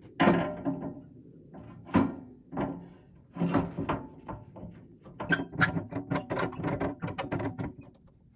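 Metal clanking against a tractor's steel loader bucket as a long metal tool is handled in it: a loud ringing clank just after the start, more single strikes around two and three and a half seconds in, then a quick run of rattling clanks over the last few seconds.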